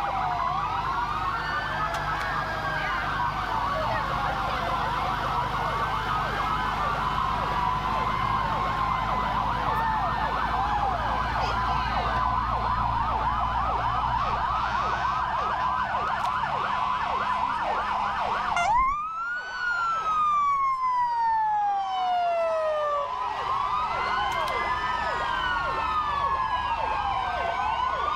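Several fire-truck sirens wailing and yelping at once, overlapping, over the low rumble of the trucks' engines as they pass. About two-thirds of the way through, one siren rises sharply and then winds slowly down over several seconds before the wailing picks up again near the end.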